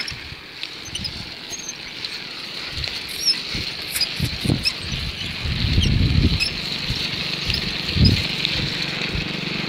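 Wind buffeting the microphone in irregular low gusts while riding, strongest about six and eight seconds in, over a steady high hiss.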